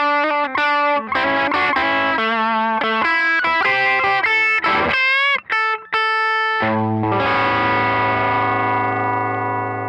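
1994 Hamer Chaparral electric guitar through a Tone King Imperial MK2 amp on a crunchy, lightly overdriven setting, playing a quick single-note lead phrase with string bends and vibrato. About two-thirds of the way through, a chord is struck and left to ring out, slowly fading.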